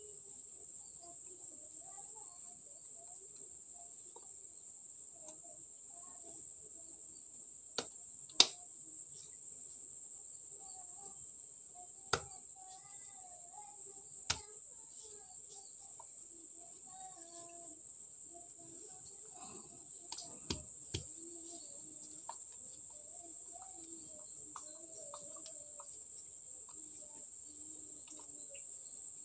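Steady high-pitched chirring of crickets, with a few sharp clicks and knocks, the loudest about eight seconds in, from a screwdriver driving wood screws through a steel door hinge into wooden boards. Faint distant voices murmur underneath.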